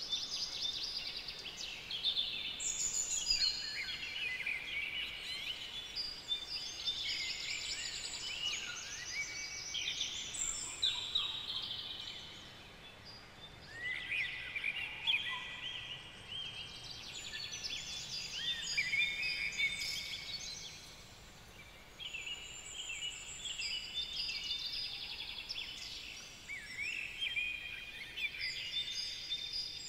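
Several songbirds singing at once: a dense chorus of chirps, trills and whistles, with two short lulls.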